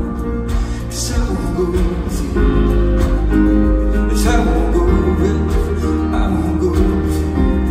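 A live band playing a slow pop song: piano and guitar over a steady low bass, with a voice singing in places.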